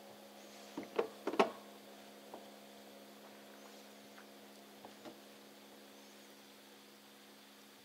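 Small clicks and handling noises of fingers working a fishing hook rig while threading corn kernels onto it, most of them in a short cluster about a second in. A steady low electrical hum runs underneath.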